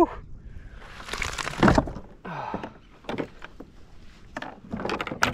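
Irregular knocks, thumps and scuffs of handling on a plastic fishing kayak as a freshly caught Spanish mackerel is put away. The loudest thump comes near the middle, with a cluster of knocks near the end.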